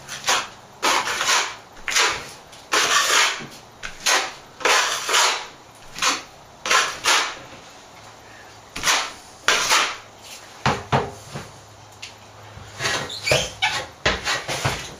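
Steel plastering trowel scraping across a ceiling patch, about a dozen quick strokes of varying length with a couple of short pauses: a coat of plaster being spread and scraped back smooth.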